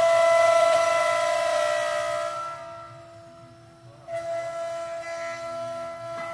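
CNC router spindle whining steadily as its bit carves a wooden cylinder turning on the 4-axis rotary. The whine fades away for about a second around three seconds in, then comes back suddenly at about four seconds.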